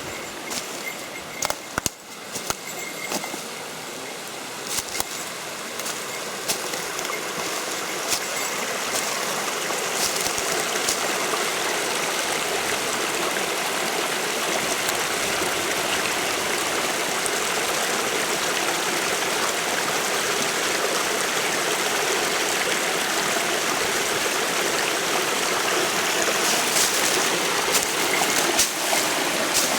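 Waterfall rushing steadily, growing louder over the first ten seconds or so and then holding, with a few sharp clicks in the first few seconds and again near the end.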